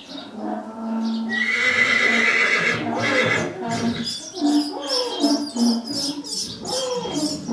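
A mule colt whinnying: one loud call starting about a second and a half in and lasting about a second and a half.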